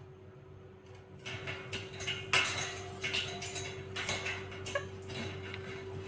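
Scratchy scraping and clattering against a hard plastic tub as a rose-ringed parakeet moves about in it, starting about a second in, over a steady low hum.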